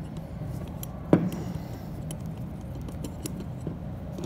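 Small metallic clicks and clinks as a CNC router's collet nut and cutter are handled and the nut is turned tight by hand on its tool holder, with one sharper knock about a second in, over a steady low hum.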